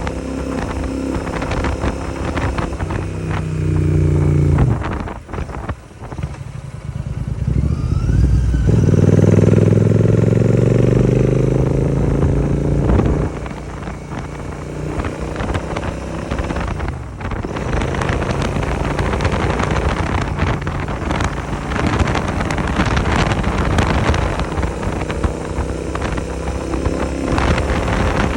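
650 twin motorcycle engine through an aftermarket AEW 101 exhaust, riding on the road. It rises in pitch under acceleration, dips briefly about five seconds in as the throttle closes, pulls hard again rising from about eight to thirteen seconds in, then settles to a steadier cruise.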